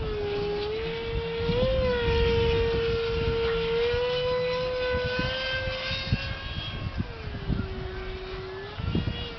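Electric ducted-fan whine of an Exceed RC F-35 Lightning model jet with a Jetscreamers Little Screamer motor, in flight: a steady high tone that shifts slightly in pitch, bending up about two seconds in and dropping lower from about seven seconds in before coming back up. Gusty wind rumbles on the microphone underneath.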